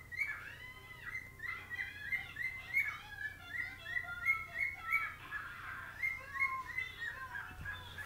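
Male whiteface cockatiel singing: a run of short, upward-hooking whistled notes repeated about three times a second, then more varied warbling notes in the last few seconds.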